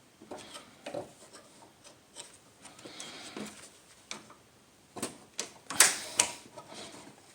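Small clicks, scrapes and rattles of a screwdriver and hands working the hood release cable out of a hood latch, with a louder run of sharp clicks about five to six seconds in.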